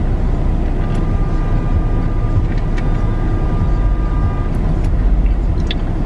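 Steady road and engine rumble of a car being driven, heard from inside the cabin.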